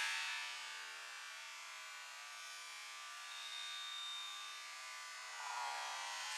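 A steady buzzing drone made of many held tones, loudest right at the start, with a thin high tone for about a second just past the middle and a swell near the end.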